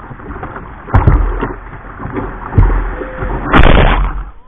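Ocean surf rushing and splashing around a plastic whitewater kayak, with water slapping the boat several times and a loud splash about three and a half seconds in.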